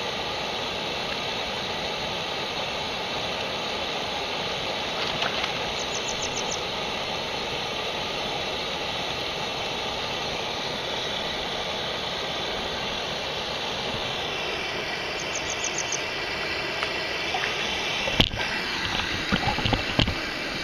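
Steady rush of flowing stream water. Near the end there is one sharp knock, followed by a few lighter knocks.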